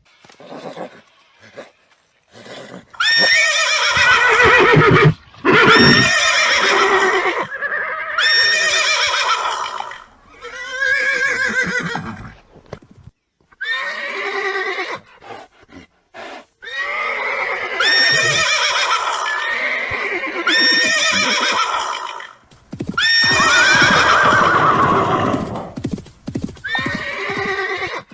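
Horses whinnying again and again: about nine loud neighs, each a second or two long, with a trembling pitch. A few short knocks, like hooves, fall in the gaps between the calls.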